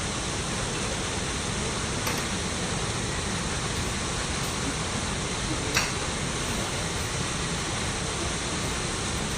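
Steady rush of falling water, an even hiss with no break, with one faint click a little before six seconds in.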